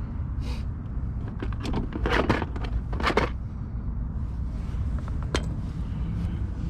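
Handling noises from a car speaker being set into its door mount: a few short scrapes and clicks of the speaker and plastic parts against the door, over a steady low rumble.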